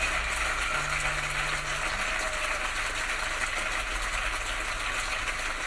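Audience noise from the end of a live song recording, heard without music as a steady hiss-like crowd sound with faint clicks, played through the van's car audio system.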